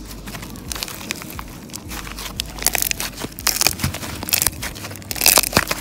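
White slime with foam rings mixed in, kneaded and squeezed by hand, giving a dense run of sticky crackles and pops. They grow thickest about halfway through and again near the end.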